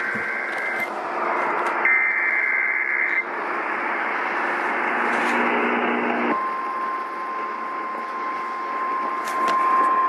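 Emergency Alert System activation for a Severe Thunderstorm Warning heard over an AM radio: the last two buzzy data bursts of the digital SAME header, about a second apart, then a few seconds of radio static, then a single steady alert tone that starts about six seconds in and holds.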